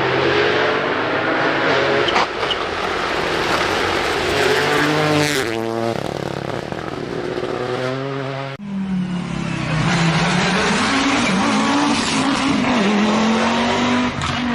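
Rally car engines at full throttle: one car revs hard through its gears and passes close by, its engine note dropping sharply about five seconds in. After a cut, another car's engine revs up and down.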